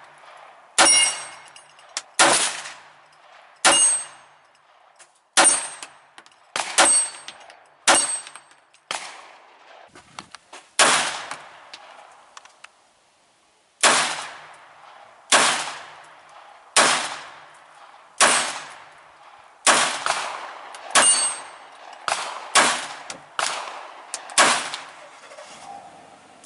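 A series of about eighteen gunshots at a steady pace of roughly one every second or so, with a short pause partway through. Several shots are followed by the ringing clang of steel gong targets being hit.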